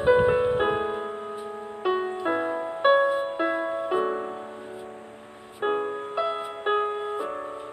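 Soft background piano music: single notes and chords struck and left to fade, with a pause of about a second and a half midway.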